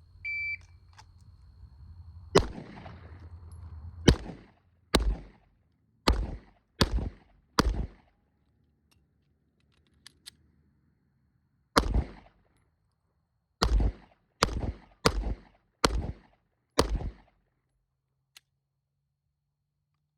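A shot timer beeps, then a pistol fires twelve shots in two strings of six, about a second or less apart. A pause of about four seconds splits the strings, broken only by two faint clicks of a reload.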